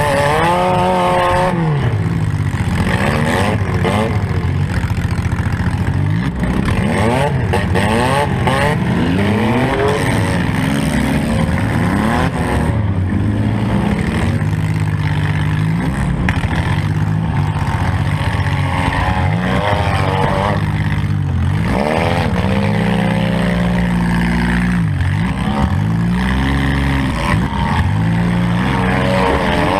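Modified four-cylinder demolition derby car engine revving up and down repeatedly, its pitch rising and falling every few seconds as the car accelerates and backs off.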